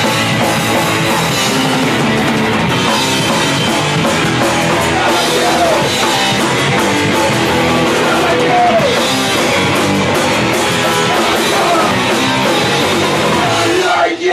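Hardcore punk band playing live: distorted electric guitar and drum kit going at full volume, dense and steady.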